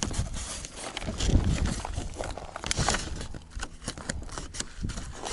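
Footsteps crunching irregularly on rough desert ground, with an uneven low rumble of wind on the microphone.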